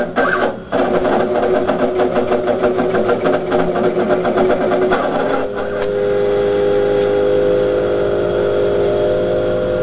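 35 W desktop laser cutter running as it cuts plywood. A fast, even buzzing pulse from the moving head lasts for about the first five seconds, after a brief drop about half a second in, and then settles into a steady hum with a held tone.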